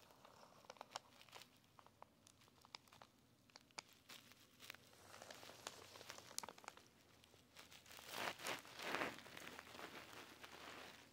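Faint handling noise: scattered small clicks and paper rustling as die-cast toy cars are pushed along a paper strip on carpet, with a louder rustle about eight seconds in.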